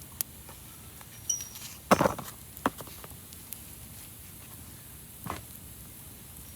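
Wood fire crackling: a few scattered sharp pops and snaps over a faint steady hiss, the loudest cluster about two seconds in.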